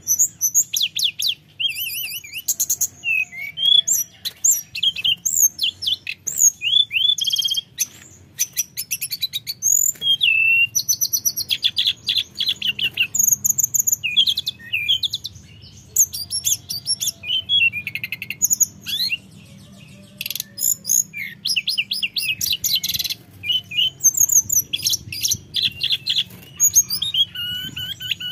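Hill blue flycatcher in full, continuous song: a fast, varied stream of high whistled notes, rapid trills and chirps with only brief pauses.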